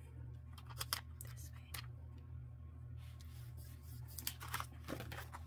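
Crinkling and small sharp clicks of a clear plastic glitter sticker and its backing being handled and peeled by hand. There are a few ticks about a second in and a denser crackle near the end, over a steady low hum.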